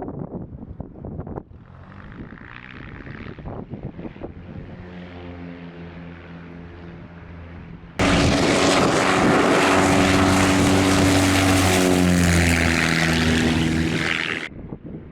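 Light propeller aircraft engine running with a steady pitched drone. About eight seconds in it cuts suddenly to a much louder, closer propeller plane at high power, which stops abruptly near the end.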